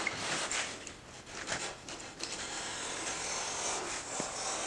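Utility knife blade scraping along the cut edge of a drywall panel, shaving off the fuzzy paper facing: a few short strokes, then a longer continuous scrape.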